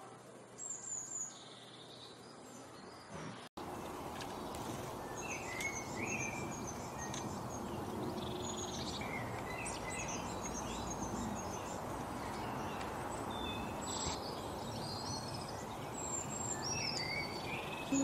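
Small songbirds chirping and calling in many short, high notes and brief trills. After a brief dropout about three and a half seconds in, a steady outdoor hiss runs under the calls.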